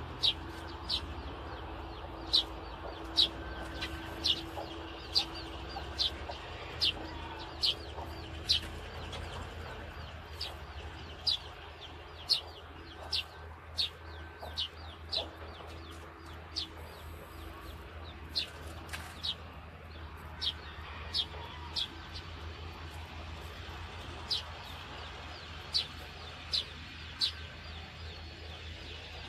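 A bird calling over and over with short, sharp, high chirps that fall in pitch, about one a second, with a lull partway through. Underneath runs a steady low drone of distant diesel heavy machinery: excavators and dump trucks working.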